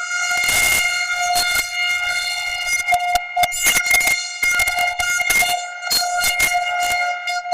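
A burp sound heavily altered with stacked digital audio effects, turned into a buzzing, horn-like tone held at one steady pitch and chopped by rapid clicks and stutter cuts.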